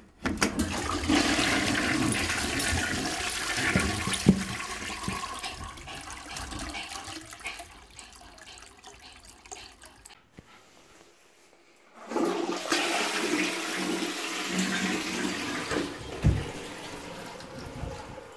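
Toilet flushing twice: a rush of water that starts just after the beginning and dies away over several seconds, then a second flush about twelve seconds in. A couple of sharp knocks sound during the flushes.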